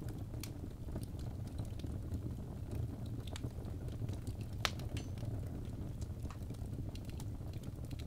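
Wood logs burning in a fireplace: scattered crackles and pops over a steady low rumble, with one sharper pop a little past halfway.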